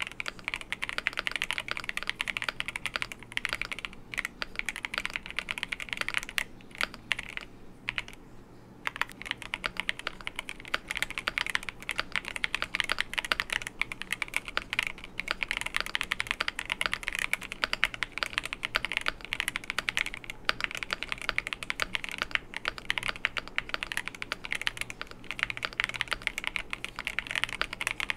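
Fast typing on a Cidoo V75 mechanical keyboard with Cidoo matte linear switches and PBT keycaps, its case filled with foam: a steady stream of keystrokes that thins out briefly about a third of the way in.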